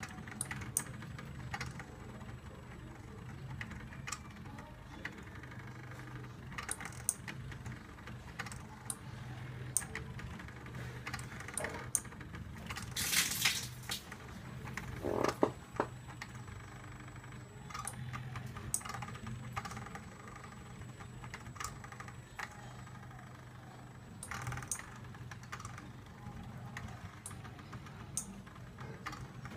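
Homemade CNC laser cutter at work: its stepper motors give scattered, irregular clicks as the laser head moves, over a steady low hum. A brief loud hiss comes about 13 seconds in.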